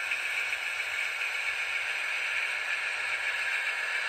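N-scale model diesel locomotive running along the track, a steady even hiss-like running noise of its motor and wheels on the rails.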